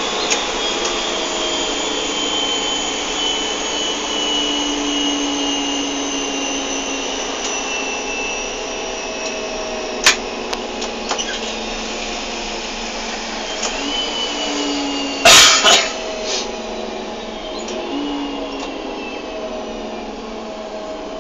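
Electric S-Bahn train's traction drive heard from the driver's cab, whining over the rumble of running, the whine falling slowly in pitch as the train slows. A few clicks, and a loud brief knock about fifteen seconds in.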